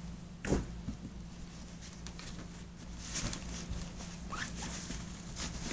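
Nylon ALICE pack and its contents being handled while items are dug out of it: faint rustling and shuffling of fabric, with a soft knock about half a second in.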